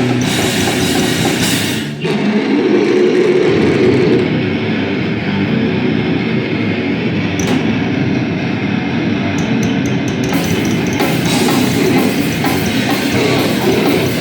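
Live harsh noise performance: a loud, dense wall of distorted noise with no steady beat or tune. It drops briefly about two seconds in, and its highest hiss falls away for several seconds in the middle before coming back.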